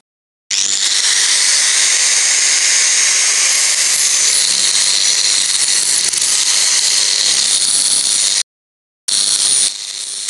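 Angle grinder running with its disc on steel, grinding down the lumpy TIG weld on the inside of a cold-bent steel handrail scroll: a loud, steady high whine. It starts about half a second in, cuts off abruptly a little after 8 seconds, and starts again about a second later.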